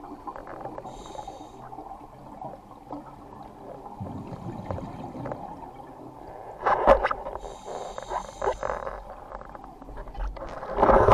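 Scuba diver breathing underwater: a hissing regulator inhalation about a second in and another a little after halfway, and loud bubbling bursts of exhaled air just before it and at the end, over a dull underwater rumble.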